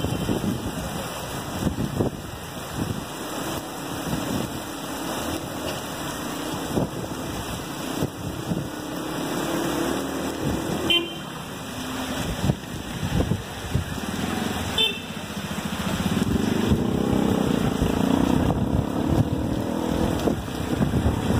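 Heavy rain and gusting wind buffeting the microphone, with cars passing through standing water on the flooded street. A car swells past about halfway through and another near the end, and two short horn toots sound in between.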